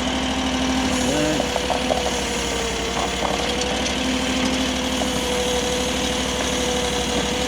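AGT LRT23 mini skid steer running steadily, with a steady whine that steps up in pitch about a second in and a few light clicks, as the machine is worked forward and back to free gravel packed around the track drive sprocket.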